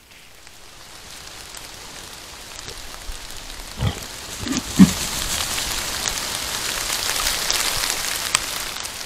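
Wild boar giving a few short low grunts about four to five seconds in, over a steady wet patter that swells and then fades.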